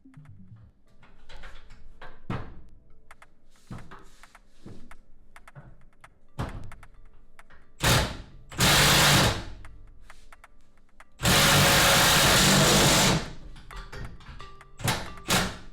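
A power tool runs in two bursts of about one and a half to two seconds each, between light clinks and knocks of hand tools, undoing the 9/16 in. bolts that hold a car bumper on.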